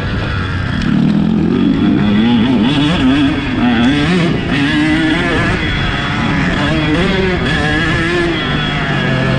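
KTM 150 SX two-stroke single-cylinder motocross engine under riding load, its note rising and falling again and again as the throttle is opened and closed.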